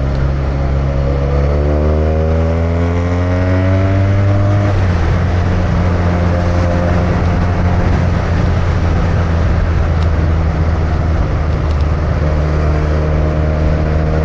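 Benelli touring motorcycle's engine heard from a helmet-mounted microphone, rising in pitch as it accelerates for a few seconds, dropping abruptly about five seconds in at a gear change, then running steadily.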